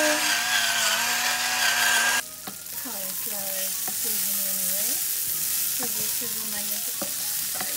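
A pepper grinder grinding with a steady whine over cauliflower frying in oil. About two seconds in it cuts to the florets sizzling in a nonstick pan while a wooden spatula stirs and scrapes them, with a few light clicks.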